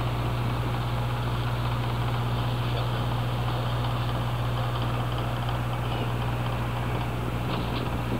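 Tour boat's engine running steadily, a constant low drone heard from on deck.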